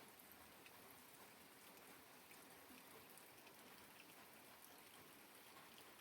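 Faint, steady rain: an even hiss with scattered drips.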